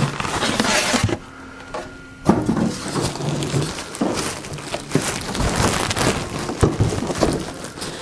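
Plastic wrapping crinkling and a foam packing end cap creaking as a boxed food dehydrator is handled and unwrapped, with scattered knocks. There is a short lull about a second in, then the handling picks up again.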